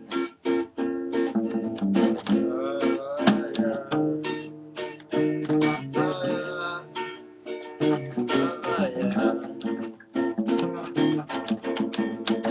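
Acoustic guitar strummed in a quick samba rhythm over an acoustic bass guitar's low notes.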